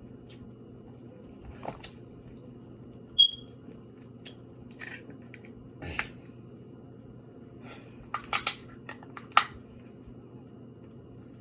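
Eating sounds from a seafood boil: sporadic sharp cracks and clicks of shells being broken and picked apart, with a quick cluster of cracks about eight seconds in. One short ringing clink about three seconds in is the loudest sound.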